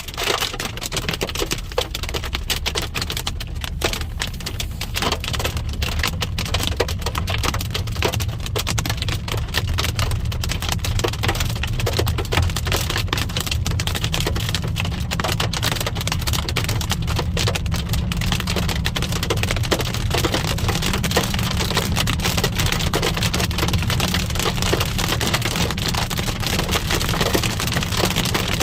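Hail drumming steadily on a moving car, a dense patter of small hits over the low rumble of the car on the road.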